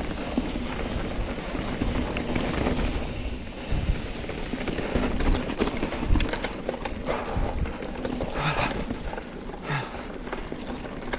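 Mountain bike climbing a dirt trail: tyres rolling over dirt and rocks, with irregular knocks and rattles from the bike over a steady rushing noise.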